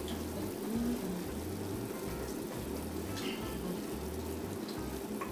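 Butter, cream-of-coconut and rum sauce simmering in a small stainless saucepan on a gas burner, a steady bubbling hiss, cooking down. A silicone spatula stirs it, with a few faint clicks against the pan near the end.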